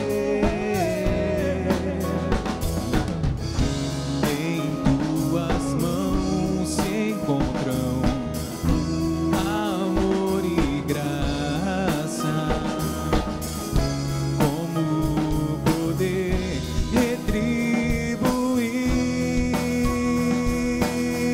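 Band playing an instrumental break in a Catholic worship song, with drum kit keeping the beat under sustained melody lines.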